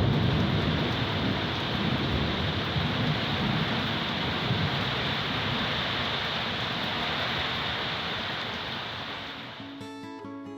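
Steady heavy rain with a low thunder rumble dying away at the start. The rain fades near the end as lo-fi guitar music comes in.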